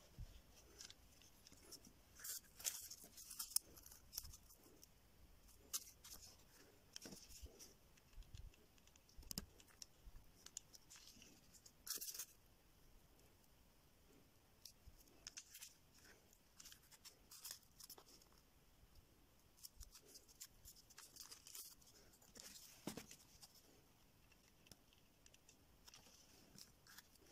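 Faint handling noises: strips of corrugated cardboard and small parts rustling, scraping and tapping on a tabletop in scattered short clicks, a little busier about three seconds in and again near twelve seconds.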